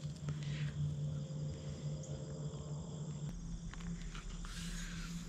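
Insects, crickets among them, singing steadily in a field, a continuous high drone of several even tones over a steady low hum. A short rustling noise comes in near the end.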